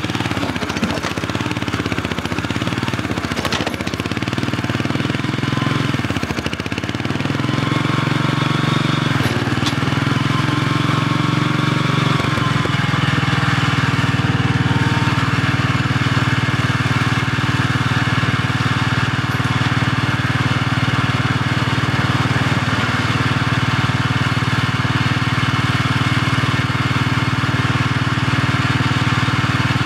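Small engine of a compact wheeled loader running, growing louder about seven seconds in and then running steadily, with a thin whine that glides up and down around ten seconds in.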